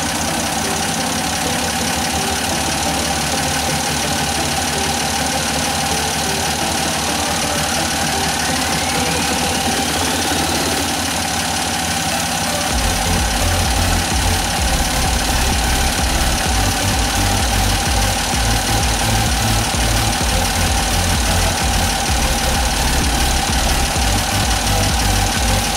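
Old car engine idling on a freshly rebuilt carburettor as the idle screw is tuned toward the highest, smoothest idle. About halfway through, the running gets deeper and a little louder.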